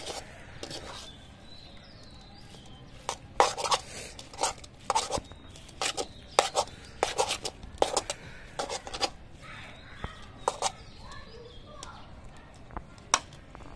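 A metal spatula scrapes and clacks against an iron karahi as noodles are stirred and tossed. The strokes are irregular, several a second, starting about three seconds in and thinning out near the end.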